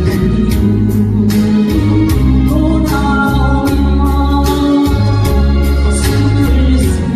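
A Korean ballad sung over a backing track, with a steady drum beat, bass and organ-like keyboard.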